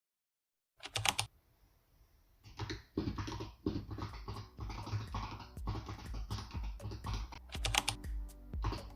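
Keys being typed on a Razer Huntsman Tournament Edition opto-mechanical keyboard: quick, irregular clacks starting about a second in, with a fast flurry near the end, over background music.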